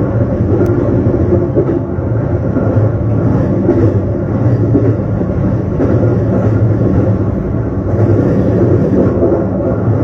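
Local electric train running between stations, heard from inside the carriage. A steady rumble of wheels on rail with a low motor hum runs throughout, with no distinct clickety-clack rhythm.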